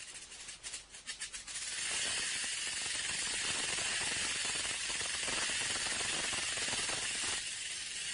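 Rattlesnake shaking its tail rattle as a warning: a few separate clicks, then a continuous high buzz from about two seconds in that eases slightly near the end.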